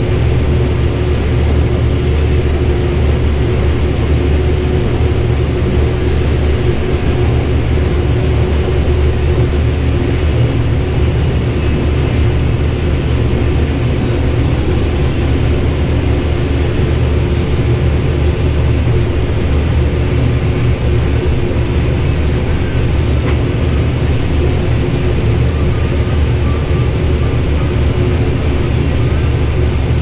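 Combine harvester running steadily under load while unloading shelled corn through its unloading auger, a constant low drone with a steady hum, heard from inside the cab.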